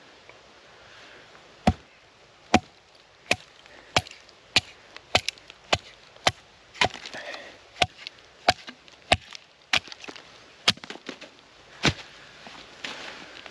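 A wooden log baton striking the spine of a knife, driving the blade down into persimmon wood to split off chunks (batoning): about fifteen sharp knocks, roughly one every two-thirds of a second, starting a couple of seconds in.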